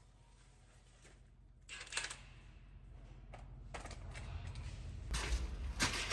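A few short metallic clicks and knocks of hand tools and bolts being worked on a sprayer fender, the sharpest about two seconds in and again near the end, over a low hum that grows louder in the second half.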